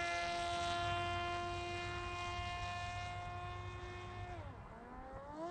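Parrot Disco fixed-wing drone's electric motor and pusher propeller whining steadily in flight. About four seconds in the pitch drops sharply as the throttle is eased off, then climbs back to the same pitch as power returns.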